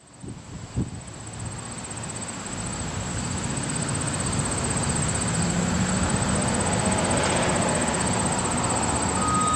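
Outdoor background rumble, likely wind on the microphone, growing steadily louder, with a steady high-pitched whine throughout. Near the end a faint steady tone enters as the outdoor warning siren starts up.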